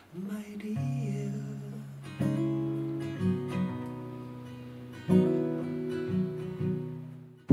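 Acoustic guitar played slowly: three chords strummed, each left to ring and fade, with a few lighter plucked notes between them. A man's voice sings briefly near the start.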